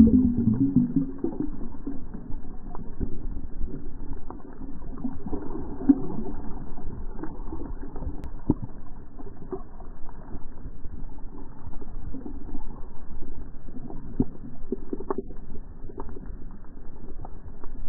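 Muffled underwater sound picked up through a camera's waterproof housing: a low, steady water rumble with scattered soft clicks and knocks.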